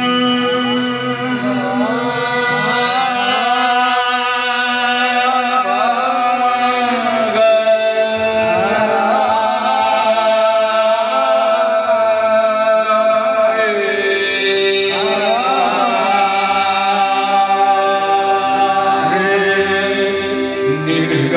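Live qawwali, Sufi devotional singing: male voices sing long, winding, ornamented phrases and held notes over a steady harmonium drone.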